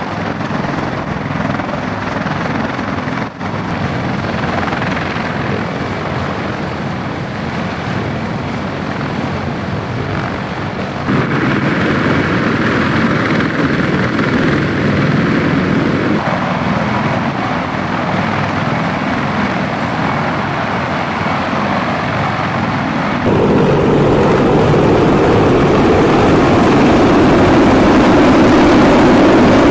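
Marine Corps CH-53 heavy-lift helicopter running, with turbine and rotor noise across several edited shots. The sound jumps louder about eleven seconds in and again about two-thirds through, and is loudest as the helicopter passes overhead near the end.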